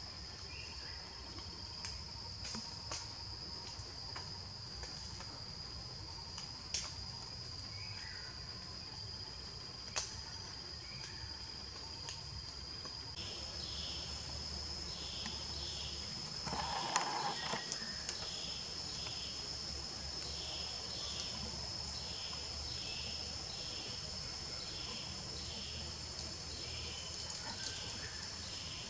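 Forest insects: a steady high-pitched buzz runs throughout, and from about halfway a second insect joins with chirps repeating about once a second. A few sharp clicks come in the first half, and a brief louder burst of noise comes just past the middle.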